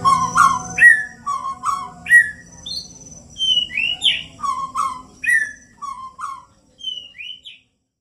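Caged shama (murai batu) singing: a run of loud, short whistled notes and rising slurs, about two a second, thinning out near the end.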